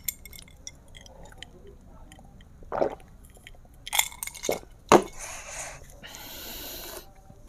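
Drinking a glass of liquor: soft swallowing sounds, then the glass set down on a table with a sharp knock about five seconds in, followed by a long breathy exhale.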